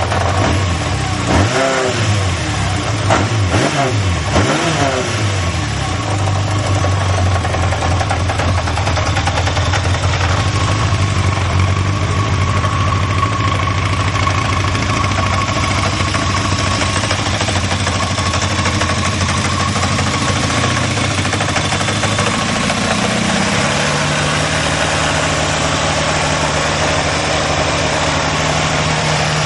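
Yamaha XJ600S Diversion's air-cooled inline-four engine idling, blipped about three times in quick succession in the first few seconds, then running steadily; about 23 seconds in, the engine speed rises and holds at a higher steady idle.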